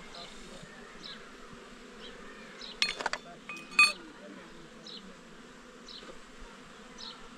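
Insects buzzing steadily, with short high chirps about once a second. A few sharp clicks and knocks about three seconds in, then a ringing clink about a second later, are the loudest sounds.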